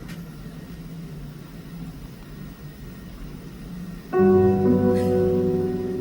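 Low background murmur, then about four seconds in sustained piano/keyboard chords start the live song's introduction.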